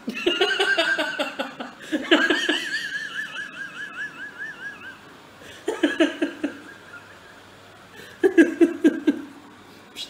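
A person laughing close to the microphone in four bursts of rapid, pulsed laughs. During the second burst a high wavering squeal is held for about three seconds.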